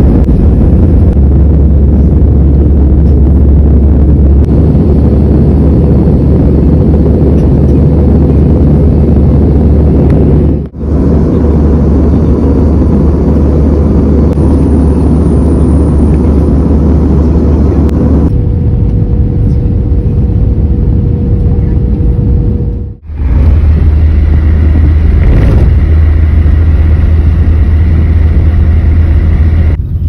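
Jet airliner cabin noise: the loud, steady low rumble of the engines and airflow heard from inside the cabin, with a faint steady whine. It comes in several clips, with brief breaks about a third and three quarters of the way through.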